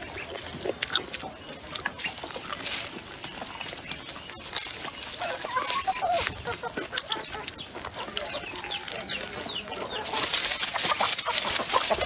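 Chickens clucking, mixed with close-up chewing and lip-smacking clicks from someone eating; the eating noise gets louder about ten seconds in.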